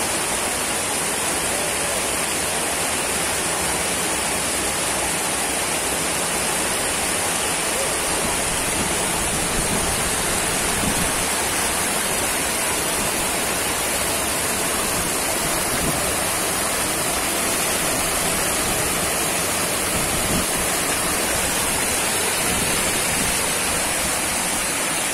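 Surplus water from a full lake pouring over a long stone weir and churning below it: a steady, even rush of falling water.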